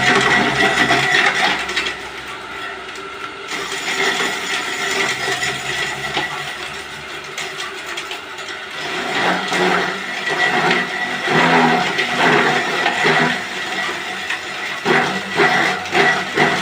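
Electric forage chopper running with a steady high motor whine. It eases somewhat after about two seconds, and irregular chopping noise comes in from about halfway through as material goes through the blades.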